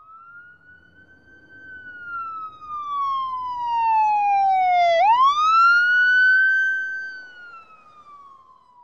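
A siren-like whistling tone used as a sound effect. It swells in and slowly glides down in pitch, sweeps sharply back up about five seconds in, then holds and falls again as it fades away.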